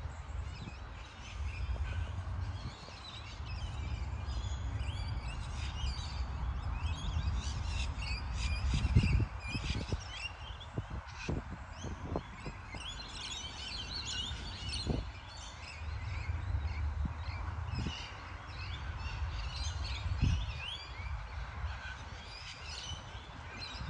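Many birds chirping and calling from the trees beside a lake, a dense chorus of short calls throughout. Under it a low rumble comes and goes, with a few short low knocks, the loudest about nine seconds in.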